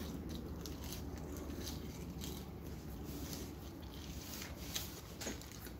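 Quiet eating sounds: chewing on French fries, with a few soft rustles and clicks over a low steady hum.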